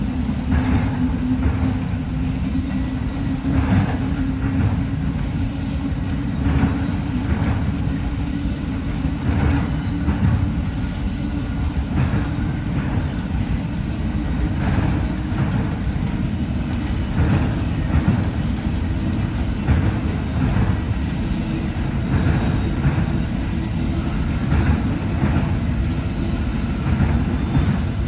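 Amtrak Auto Train auto-rack cars rolling past: a steady low rumble of wheels on rail, with repeated clicks as the wheels cross rail joints, about one every second.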